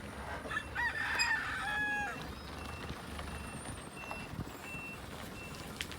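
A rooster crows starting about half a second in, ending on a long held note around two seconds. After it comes a faint, high, short beep repeating evenly about once every 0.7 seconds, over a steady low rumble.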